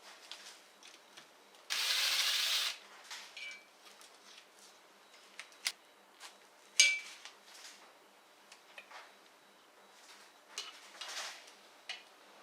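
Small metal parts and hand tools clicking and clinking as the oil filter cover is worked off a KTM 250 EXC-F engine, one sharp clink ringing briefly. There is a one-second hiss about two seconds in and a softer one near the end.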